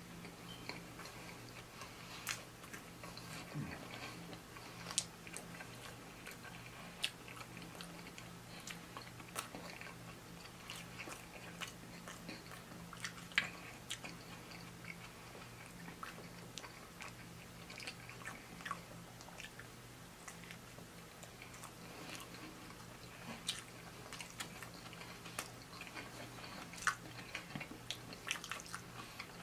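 Close-miked chewing and biting of a double cheeseburger, with many short mouth clicks scattered through. A low steady hum runs underneath.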